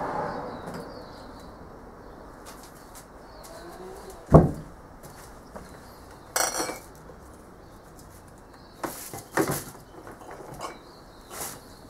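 Workshop clatter: one loud thump about four seconds in, then a short rattle and a few sharp metallic clinks and knocks as metal objects are handled.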